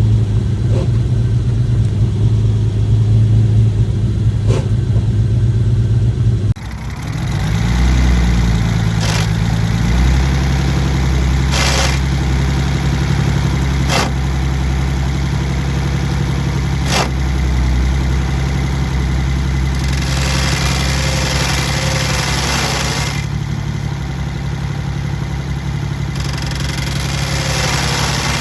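Jaguar E-type Series 2's 4.2-litre straight-six idling while the clutch is worked. The engine note drops suddenly about a quarter of the way in, and a few sharp clicks follow. A rough grinding, rubbing noise from the clutch as it engages comes in about two-thirds through and again near the end.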